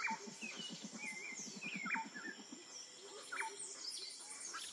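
Wild ambience: several birds calling with short sharp chirps and whistles over a steady high insect drone, with a rapid low pulsing animal call, about eight pulses a second, during the first two seconds or so.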